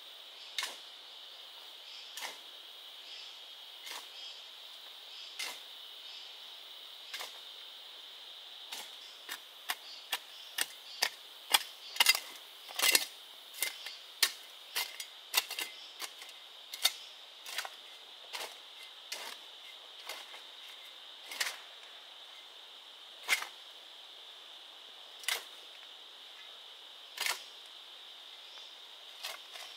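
Sharp strikes of a tool on bamboo, one every two seconds or so, coming quicker at about two a second and loudest in the middle, then spacing out again. A steady high-pitched drone of forest insects runs underneath.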